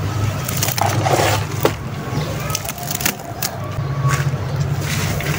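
Hands squeezing and kneading wet sand-cement slurry in a plastic basin: irregular wet squelches, slaps and splashes over a steady low hum.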